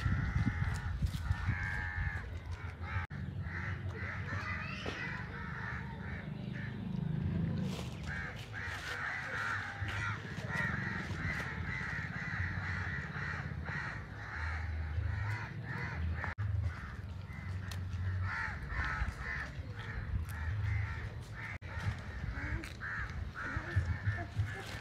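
Birds cawing continuously in a harsh, crow-like chorus, the calls overlapping and repeating without a break.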